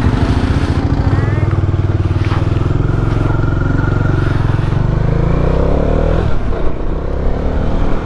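Motorcycle engine running steadily under way, with a change in its note about six seconds in.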